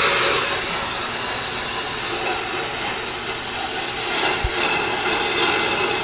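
On-car brake lathe spinning a Toyota Tacoma brake rotor while its two cutting bits shave both faces of the rotor: a steady high hiss of the cut over the lathe's running motor. One short low knock comes about four and a half seconds in.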